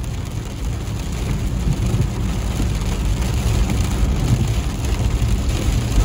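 Car driving on a wet road in rain, heard from inside the cabin: a steady rumble of engine and tyres on the wet surface, with rain hissing on the car.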